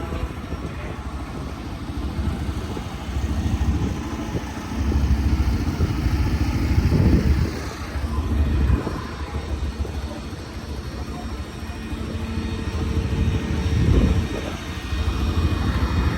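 Drag-race car engines running with a low rumble that swells and fades several times.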